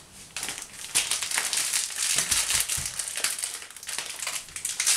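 Crinkling and crunching of plastic-wrapped packs of granulated sugar being handled and one lifted: a dense run of small crackles and rustles.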